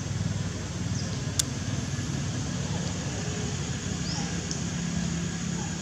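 Steady low mechanical rumble, with a few faint, short high chirps and one sharp click about one and a half seconds in.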